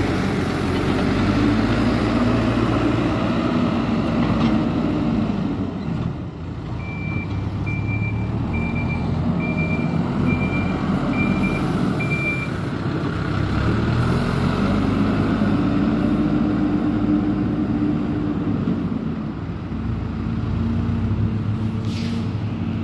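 A vehicle engine running, its pitch rising and falling. Starting about seven seconds in, a backup alarm beeps seven times, about one beep a second.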